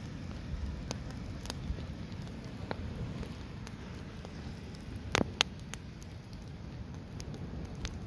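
Log campfire burning: a steady low noise from the fire with scattered crackles from the firewood, and two sharp pops a little past halfway.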